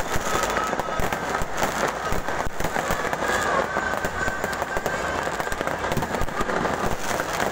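Many fireworks and firecrackers going off at once in a dense, continuous barrage of crackles and bangs.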